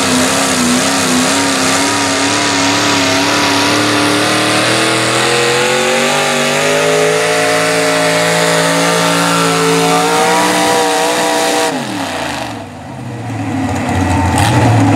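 Single-engine modified pulling tractor running at full throttle down the track, its engine note wavering and then climbing steadily for several seconds. About twelve seconds in the note drops away sharply as the throttle closes at the end of the pull, settling to a lower rumble.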